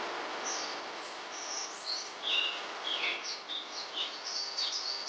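Birds chirping: a run of short, varied high chirps and calls, some sliding in pitch, growing busier toward the end, over a steady hiss.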